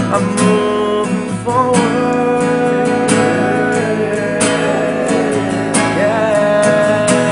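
Live band playing a Christian pop-rock song: guitar carrying the melody over a drum kit, with cymbal hits throughout.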